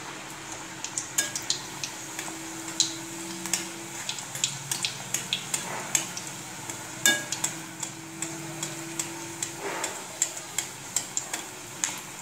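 A puri deep-frying in hot oil in a kadhai on a low flame: a steady sizzle broken by frequent sharp crackles and pops.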